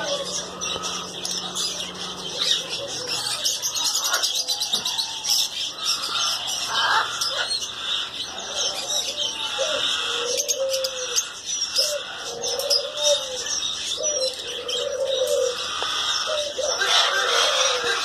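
Dense chatter of many caged birds: a steady mass of short, high chirps and twitters with budgerigar warbling among it. About halfway through, a lower warbled call starts repeating about once a second.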